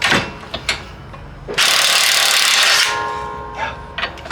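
A handheld power tool runs in one loud burst about a second and a half in, then winds down with a fading whine, after a few sharp metallic clicks of tools on the car's suspension parts.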